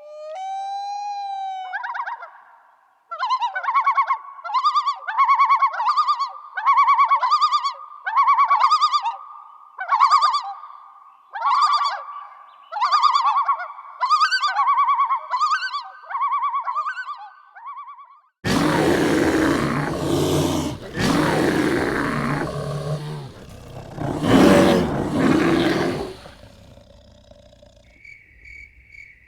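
A run of wild-animal calls. A pitched call repeats more than a dozen times, a bit over once a second; then comes a loud, rough roar lasting several seconds; crickets start chirping faintly near the end.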